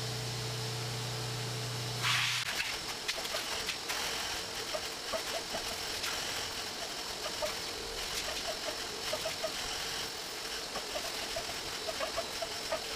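A wet vacuum is running, its floor wand sucking up rinse water from tiled floor with an irregular slurping and gurgling over the steady motor. A low hum stops about two seconds in, just as a burst of rushing air starts the suction noise.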